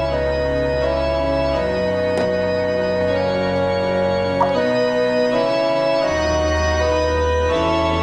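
Organ music: sustained chords held for a second or two each, changing over a steady bass line.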